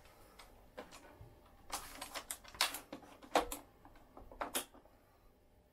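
A run of sharp clicks and knocks as the telescopic trolley handle of an Inmotion V8 electric unicycle is pushed down into its shell and the shell is handled. The clicks are loudest and most frequent between about two and three and a half seconds in, with a last pair near four and a half seconds.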